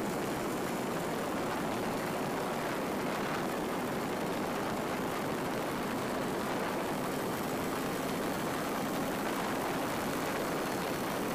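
Yamaha DT200's single-cylinder two-stroke engine running steadily as the motorcycle cruises along the road, mixed with wind rushing over the microphone.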